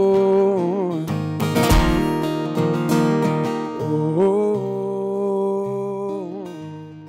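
A male singer holding long sung notes over a strummed acoustic guitar, in a live solo performance.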